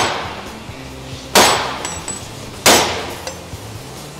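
Allison 1000 rotating clutch housing smacked down onto a steel workbench three times, about a second and a half apart, each a sharp metallic bang that rings out briefly. The blows knock the clutch piston stack loose from the housing.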